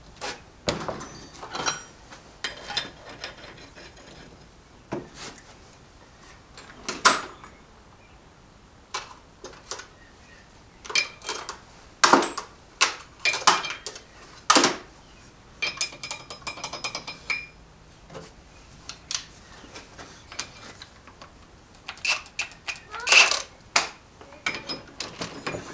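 Metal hand tools and sockets clinking and knocking against each other and on metal, irregularly, some strikes ringing briefly, while working on a transfer case.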